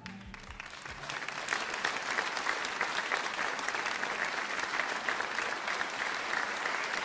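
Audience applauding. The clapping swells about a second in as the last low notes of the music die away, then holds steady.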